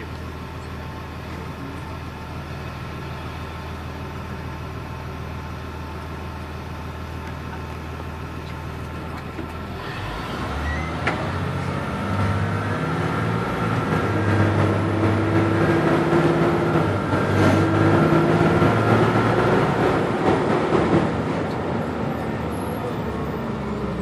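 Caterpillar C7 inline-six diesel of a Blue Bird Vision school bus heard from inside the cabin, running steadily at low revs at first. About ten seconds in, the bus pulls away and the engine grows louder, its revs rising in steps before easing off near the end.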